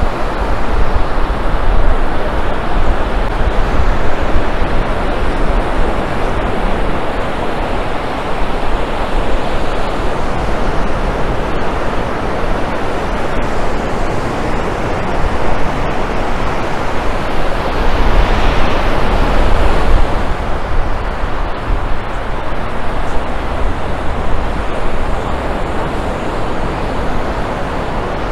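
A steady, rushing mix of breaking surf and wind buffeting the microphone, with road traffic under it. It swells louder about eighteen seconds in, then eases off.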